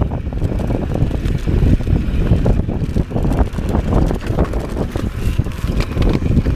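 Mountain bike descending a dirt singletrack: wind buffeting the action camera's microphone over a steady tyre rumble, with frequent rattles and knocks from the bike over bumps.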